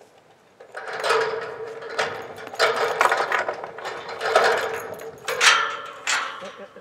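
Chain and latch of a metal farm gate rattling and clanking as they are worked by hand to open the gate, in uneven bursts that begin under a second in and stop just before the end.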